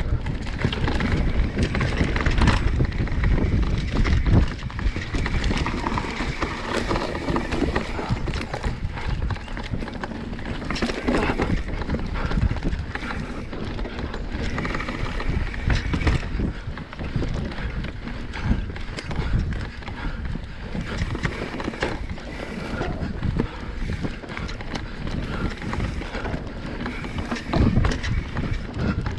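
Commencal mountain bike descending a rocky, steep trail: a continuous irregular clatter of the tyres, chain and frame hitting rocks and loose ground, over a low rumble and wind buffeting the microphone.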